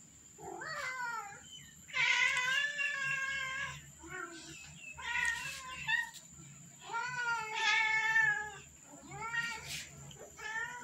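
Domestic cats meowing over and over: about six meows, some short and some long and drawn out, with brief gaps between them.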